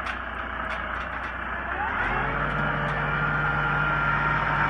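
Ford farm tractor's diesel engine running as the tractor drives along a gravel drive. About two seconds in, the engine note steps up and it grows gradually louder as the tractor comes closer.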